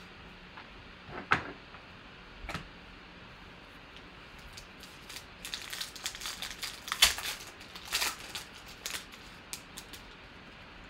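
Foil wrapper of a trading-card pack being torn open and crinkled, a dense run of crackling rustles through the middle of the stretch. Before it come two sharp taps of cards being handled.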